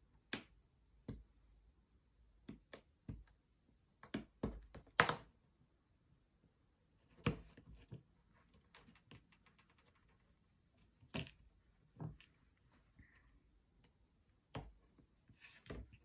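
Scattered light clicks and knocks of thin laser-cut plywood parts being cut free with a craft knife and pressed out of their sheet, with the sheet and knife tapping on a cutting mat. The loudest cluster of clicks comes about five seconds in, and a run of faint quick ticks follows midway.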